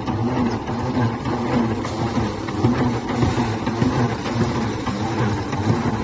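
Wooden rice thresher running steadily, its spinning drum clattering as bundles of cut rice stalks are threshed against it.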